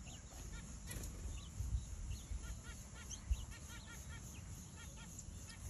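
Button quail chicks peeping: many short, high chirps, several a second, in an irregular scatter. Under them a low rumble, with two sharp bumps near the middle.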